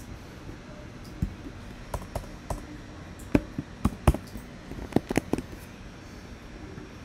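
Typing on a computer keyboard: about a dozen irregular keystrokes, a few of them louder in the middle, over a steady faint background noise.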